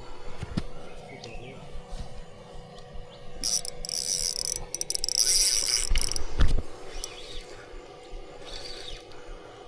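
Fishing reel clicking and buzzing as line runs and is wound in while a fish is being played, loudest for a couple of seconds from about three and a half seconds in. A dull thump follows a little later.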